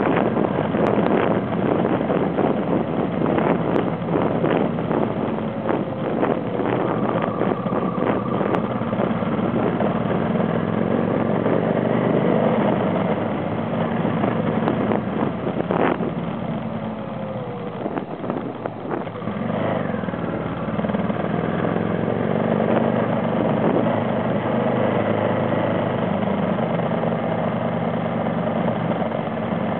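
Off-road vehicle engine running under way on a dirt road, its pitch rising and falling gently as the throttle changes, over rumbling road and wind noise. Scattered knocks and rattles from the rough surface, with one sharp knock about halfway through.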